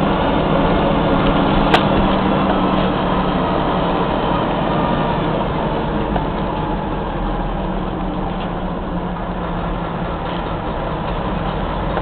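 The engine of an old Mack CF fire engine running steadily as it drives, heard from inside its cab, with one sharp click about two seconds in.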